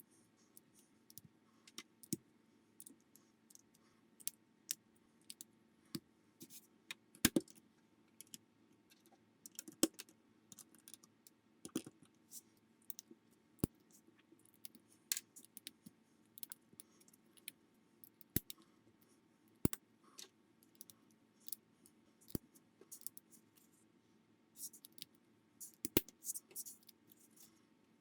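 Plastic building bricks clicking and tapping as pieces are handled and pressed together: irregular sharp clicks, often several a second, with a few louder snaps.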